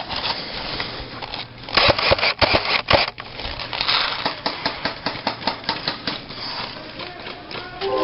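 Clicking and rattling of an airsoft rifle and its mounted camera being jostled as its carrier moves on foot. A dense run of clicks comes about two seconds in, then a steady patter of about three clicks a second.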